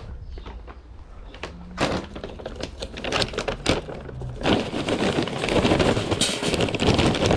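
Handling noise: scattered knocks and steps at first, then from about halfway a bag being gripped and rustled, a dense crinkling with many small clicks.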